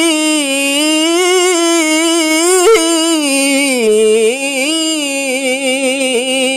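A single voice chanting Quranic recitation in long, ornamented held notes, the pitch wavering, then stepping down to a lower note about four seconds in.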